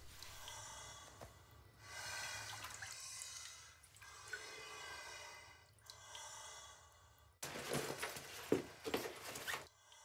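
Slow breaths drawn in and out through a snorkel tube by someone lying underwater in a bathtub, each breath swelling and fading over a second or two with a hollow, faintly pitched sound. About seven and a half seconds in, a louder noisy stretch with a few sharp knocks takes over for a couple of seconds.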